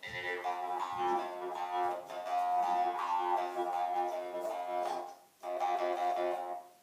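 Jaw harp played, a steady twanging drone whose overtones shift to pick out a melody, with a short break about five seconds in.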